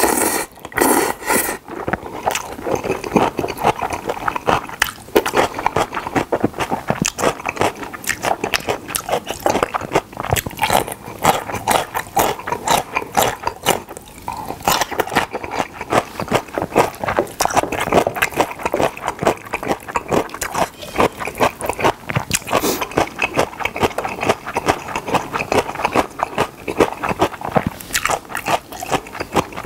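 Close-miked eating of Chapagetti black-bean noodles: the noodles slurped in, then continuous wet chewing and mouth smacking.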